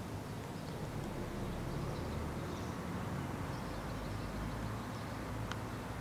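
Outdoor ambience: a steady low rumble, with a few faint high chirps and one small click.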